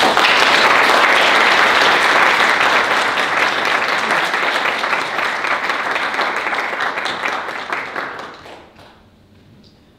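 Audience applauding at the end of a presentation, loud at first and dying away about nine seconds in.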